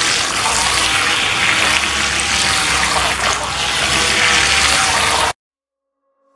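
Toy RC racing boat running fast in circles in a tub, its propeller churning and splashing the water. It cuts off suddenly about five seconds in.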